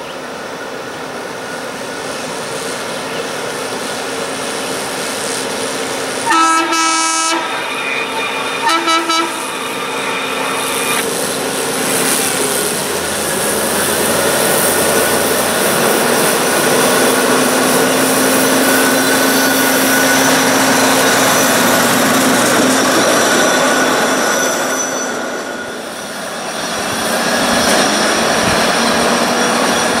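CSX maintenance-of-way track machine running along the rails, its engine and wheels growing louder as it approaches. About six seconds in it sounds its horn: one blast of over a second, then three short toots. Near the end the sound drops briefly, then comes back up.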